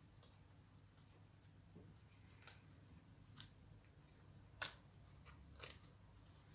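Near silence broken by a handful of faint, short clicks and scratches: wool strands being pulled from slot to slot on a braiding wheel as the braid is worked. The clearest click falls a bit past halfway.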